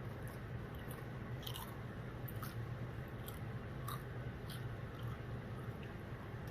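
Chips being chewed, with scattered short, sharp crunches at irregular intervals over a steady low hum.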